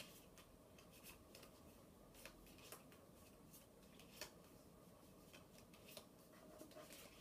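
Faint, irregular clicking of a deck of playing cards being shuffled by hand.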